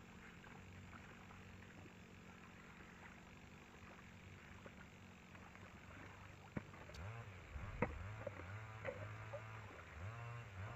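Engine of a two-wheel walking tractor running faint and steady, then revving up about seven seconds in and again near the end, settling at a louder, higher running speed. A couple of sharp knocks come as it picks up.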